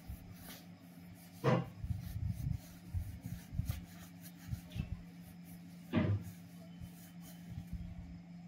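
Soft rubbing and handling noises of wool yarn and a crochet hook being worked, with two louder brushes about a second and a half in and again about six seconds in. A steady low hum runs underneath.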